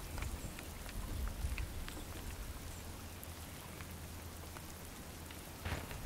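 Steady patter of falling precipitation: a soft hiss with scattered light ticks over a low rumble, swelling into a louder rush of noise near the end.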